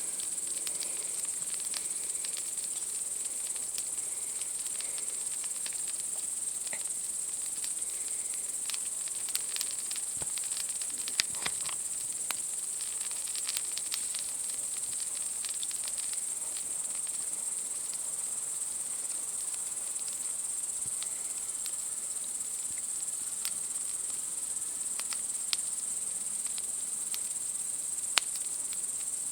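A steady, high-pitched chorus of night insects, with a campfire crackling underneath in scattered small pops; two sharper pops stand out, one about eleven seconds in and one near the end.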